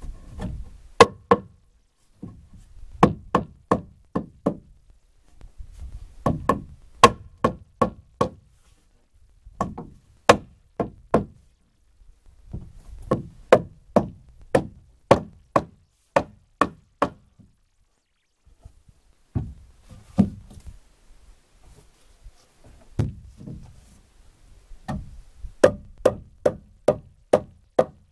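Hammer blows on the timber of a log hut: bursts of several sharp, quick strikes with short pauses between bursts.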